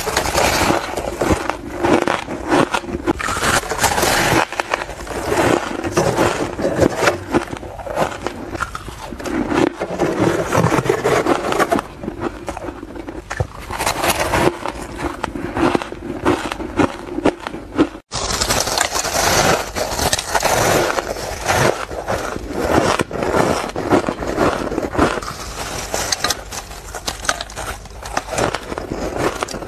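Close-up crunching and chewing of packed powdery ice, mouthful after mouthful in quick succession, with a sharp break about eighteen seconds in where a new bite begins.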